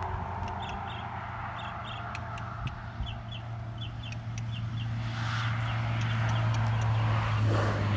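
Short high bird chirps repeating a couple of times a second over a steady low hum, with chicken clucks about five seconds in and again near the end.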